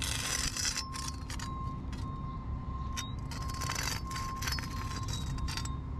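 Metal spatula scraping along a caulk joint between brick and concrete as the bead is tooled smooth, in strokes with a light metallic ring. The strongest strokes come at the very start and again about three and a half seconds in.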